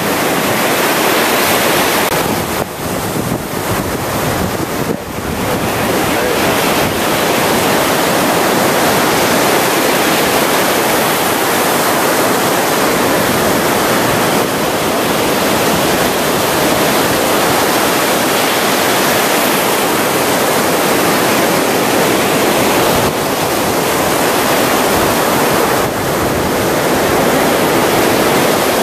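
Surf breaking on a beach: a loud, steady wash of waves, briefly softer about three seconds in.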